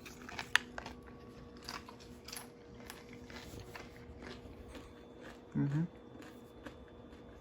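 Chewing a crisp fried tostada: irregular crunchy clicks, with a short hum of voice about five and a half seconds in.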